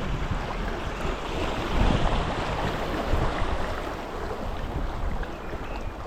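Wind buffeting the microphone over the steady rush of river water around a moving kayak, with the low rumble rising and falling in gusts.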